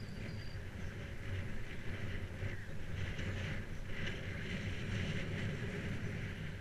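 Bicycle riding along a dirt towpath, heard from a GoPro on the bike: a steady low rumble of the tyres and wind on the microphone, with hissing swells coming and going every second or so.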